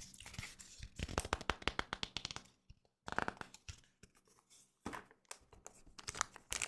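Foil wrapper of a Pokémon TCG booster pack crinkling and tearing as it is worked open by hand. It comes in crackly bursts with a couple of short pauses.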